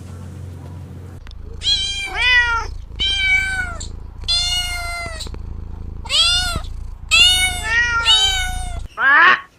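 A cat meowing over and over, about eight meows in a row, each under a second long. Near the end the sound cuts to a single, different short call.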